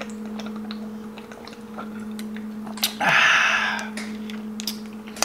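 Gulping Gatorade from a plastic bottle, with small clicky swallowing sounds, then a loud breathy exhale lasting about a second, three seconds in. A steady low hum runs underneath.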